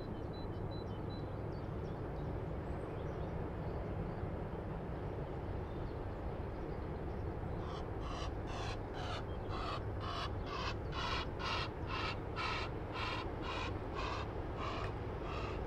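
A water bird gives a rapid series of harsh repeated calls, about two a second, starting about halfway through, over a steady low engine drone.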